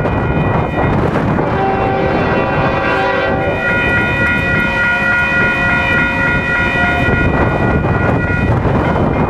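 Railroad crossing bell ringing steadily while strong wind buffets the microphone. A locomotive horn sounds two long blasts over it: one from about a second and a half in, a brief break, then a longer one ending about seven seconds in.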